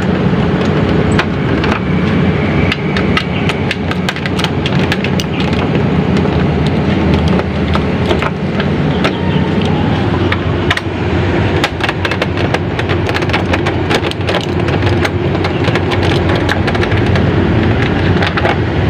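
Steady loud rumbling background noise, with frequent small metallic clicks and taps from a folding hex key set working the body-panel bolts of a motorcycle.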